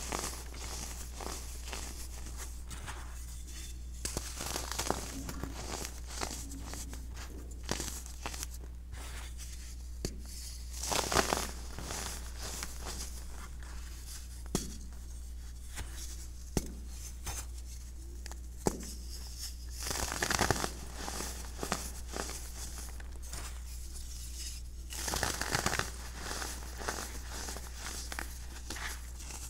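Hands squeezing and crumbling clumps of compacted baking soda powder: continuous soft crunching and crackling, with a few louder crunches, the loudest a little over a third of the way through. A steady low hum runs underneath.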